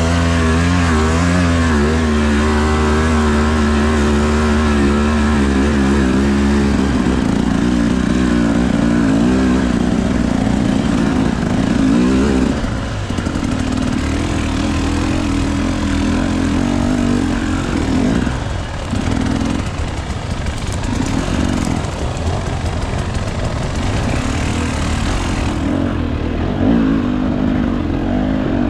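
Two-stroke GasGas EC 300 TBI enduro motorcycle engine under way with the throttle worked on and off. The revs rise and fall quickly for the first several seconds, then run steadier with a few brief drops.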